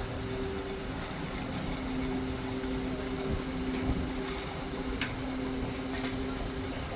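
An engine running steadily with a low two-note hum, with a few sharp clicks over it.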